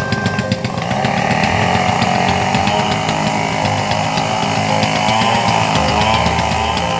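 Chainsaw cutting into a pine tree, running steadily at high revs from about a second in, over a low steady engine hum.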